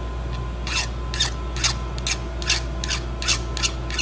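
Hand file scraping across the end of a cast ramrod pipe in short, even strokes, about two a second, filing off the thin flash left by the casting to make the end flush.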